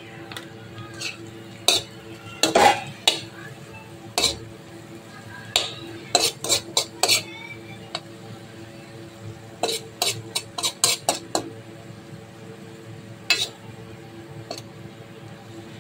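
A metal spoon stirring spiced potato sabzi in an iron kadhai, with irregular clinks and scrapes of metal on iron that come in clusters, the busiest bunches about two to three seconds in and again around six to seven and ten to eleven seconds.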